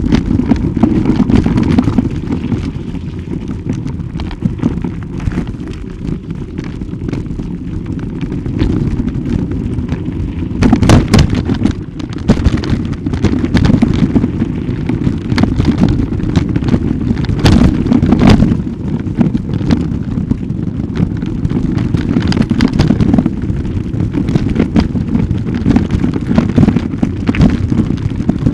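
Low rumble and crackle of handling and wind noise on a handheld camera's microphone as it is carried along, with clusters of louder knocks about eleven seconds in and again around eighteen seconds.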